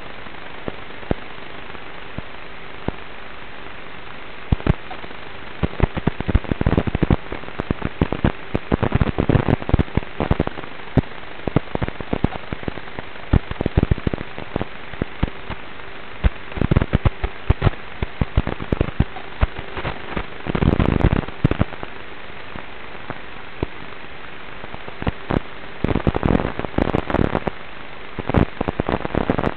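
Audio from the onboard FPV camera of a Traxxas Slash 1/10-scale RC truck: a steady hiss with a faint hum while it sits still. From about four seconds in, dense, irregular crackling and rattling comes in clusters as the truck drives over grass and gravel.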